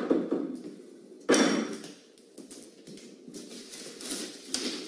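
A taped cardboard parcel and paper being handled, with a sudden loud sound about a second in, then intermittent crackly rustling.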